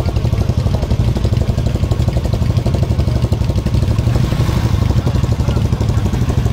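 Motorcycle engine running steadily with a fast, even pulse while the bike strains against a rope held by a man.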